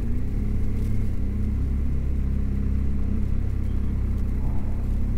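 BMW GS motorcycle engine running steadily on the road, a low, even engine note with road and wind rumble.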